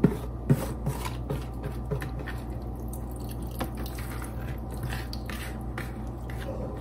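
Wet, salted shredded cabbage pushed by hand through a funnel into a glass Mason jar, its brine dripping in with it: soft squishing and dripping with many light clicks and taps, the sharpest two at the start and about half a second in.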